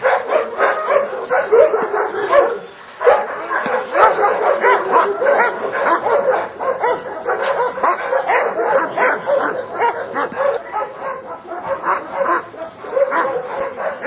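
Dobermann barking rapidly and repeatedly, with a short pause about two and a half seconds in.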